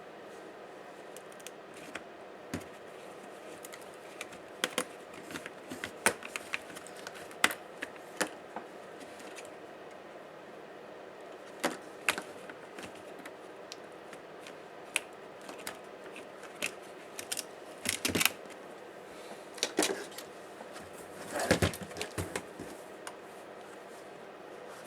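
Irregular clicks and taps of small plastic and metal laptop parts and hand tools being handled during disassembly, with a denser run of clicks a little after the middle and again near the end.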